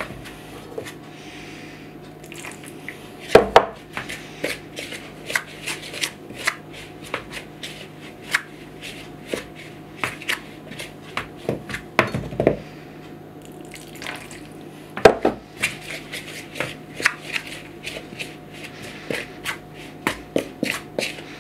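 Fingers rubbing and crumbling dampened instant mashed potato against the sides of a plastic mixing bowl, as the mash turns to breadcrumb-like clumps on its way to a dough: a stream of small, irregular crackles and taps. A few louder knocks stand out, about three and a half, twelve and fifteen seconds in.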